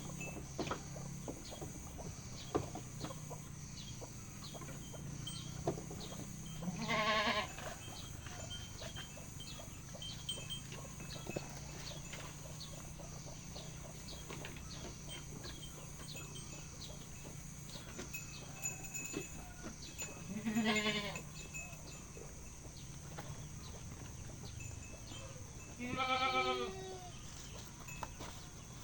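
Goat bleating three times, each call about a second long: about seven seconds in, around twenty seconds in and near the end. Light clicks and knocks and a low steady hum run underneath.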